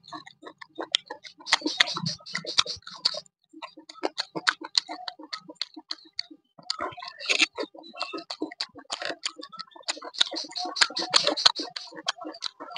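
Close-up eating sounds of a person eating by hand: chewing and lip-smacking, a rapid, uneven run of wet mouth clicks with a couple of short pauses.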